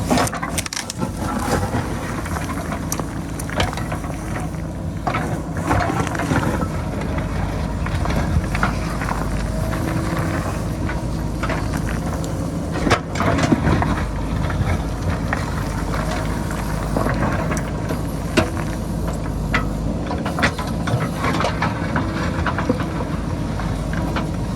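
JCB backhoe loader's diesel engine running steadily under load while the bucket digs into a rocky hillside, with scattered knocks and clatters of rock against the bucket and stones falling, a few louder cracks in the second half.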